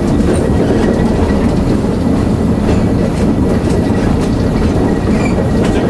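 ALCO RSD-1 diesel locomotive running steadily, heard from its cab as the train rolls slowly in reverse, with a few light clicks from the wheels over the rails.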